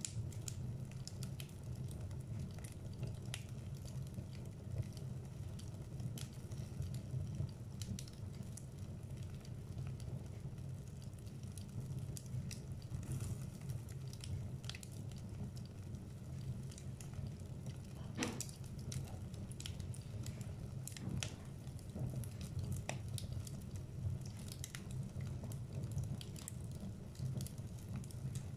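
Wood logs burning in a fireplace: a steady low rumble of flame with irregular crackles and pops throughout, one pop louder than the rest about eighteen seconds in.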